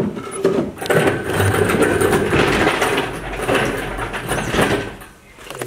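Dense metallic rattling and scraping as a heavy engine block is shifted and manoeuvred by hand, loudest from about a second in and dying away near the end.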